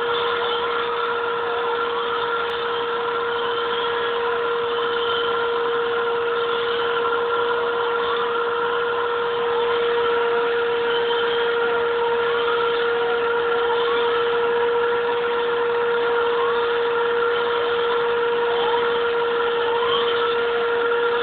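Vacuum cleaner motor running steadily with a constant whine, its hose nozzle being drawn over a long-haired cat's fur. Short rising whistles come and go every second or two as the nozzle moves.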